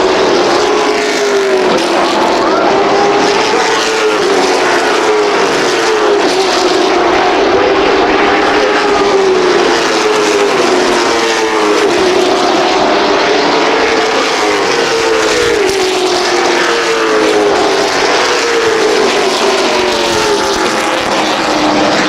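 A pack of NASCAR Modified race cars with V8 engines running at full throttle around the track. Several engine notes overlap, their pitch rising and falling as the cars lap.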